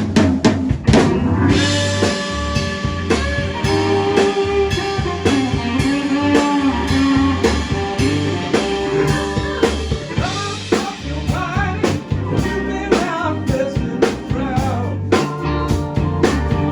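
Live blues band playing the opening of a song: an electric guitar lead with bent, wavering notes over bass and a steady drum-kit beat.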